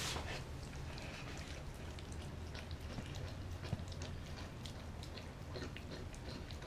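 A Doberman eating raw meat from a glass bowl: wet chewing and licking with many small irregular clicks and smacks. A steady low hum runs underneath.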